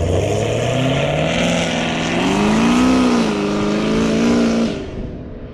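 2019 Chevrolet Camaro SS's 6.2-litre V8, fitted with 1 7/8-inch Texas Speed long-tube headers, catless, with the MPP rear muffler, accelerating hard away down the road: a loud exhaust note rising steadily in pitch, dipping and climbing again about three seconds in, then falling away sharply near the end.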